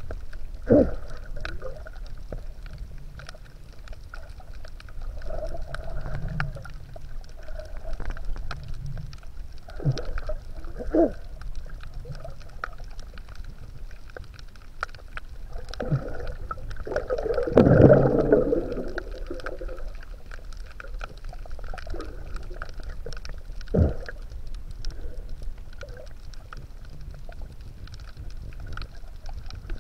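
Underwater water noise picked up by a submerged camera: a steady low rumble with scattered short gurgles and bubbling sounds, and one longer, louder gurgling burst just past the middle.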